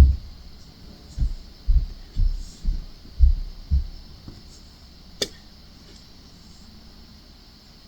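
Diamond painting pen tapping drills onto the acrylic ornament: dull low knocks about twice a second for the first four seconds, then one sharp click about five seconds in.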